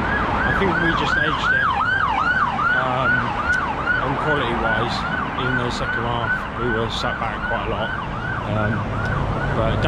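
Emergency vehicle siren on its yelp setting: a rapid repeating wail, each cycle sweeping down in pitch, about three a second.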